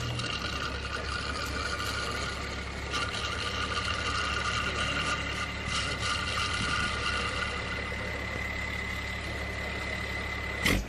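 Volkswagen Worker truck's diesel engine idling steadily, with a thin high whine over it. A single sharp bang sounds just before the end.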